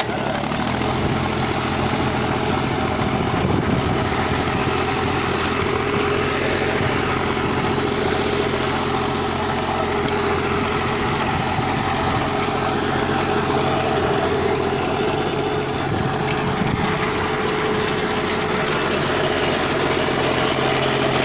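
Sonalika GardenTrac mini tractor's diesel engine running steadily under load while it drives a rear-mounted rotary tiller through the soil. The engine picks up speed right at the start, then holds an even pitch.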